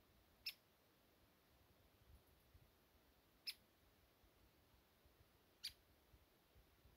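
Near silence broken by three short, high chirps a couple of seconds apart: a small bird calling.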